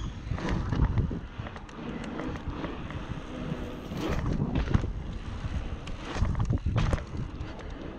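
Wind buffeting a GoPro Hero 6's microphone while riding a mountain bike, over the tyres' rumble on pavement. A few sharp clicks and rattles come as the bike rolls over sidewalk joints and edges.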